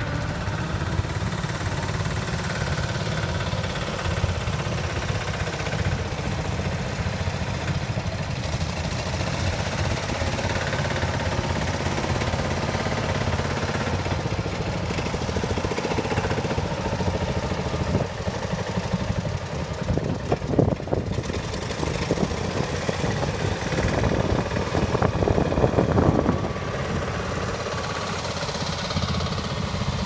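Small engines of two-wheel walking tractors running steadily as they pull ploughs through the soil. Twice in the second half one engine comes louder and rougher for a second or two.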